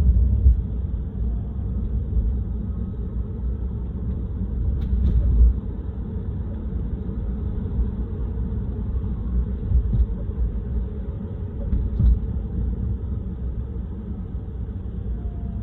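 Low road rumble inside a new Tesla Model 3's cabin at about 20–25 mph, broken by a few short thumps. The loudest comes about five seconds in and another about twelve seconds in. These are the unexplained thump noise the owner is recording.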